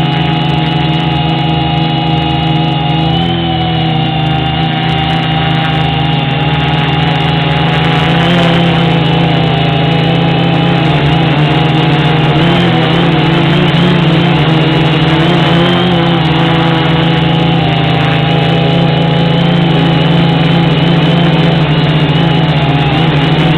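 Electric motors and propellers of a 450-size quadcopter whining, picked up by a camera strapped directly to its frame. The stacked tones shift up and down in pitch as the throttle changes while it descends.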